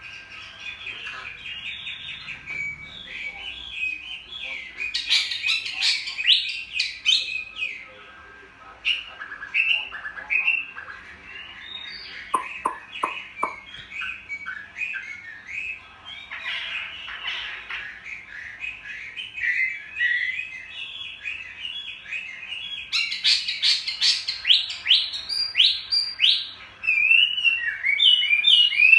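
Chinese hwamei singing a long, varied song of rapid whistled phrases and sweeping notes, with a short run of sharp clicks about twelve seconds in.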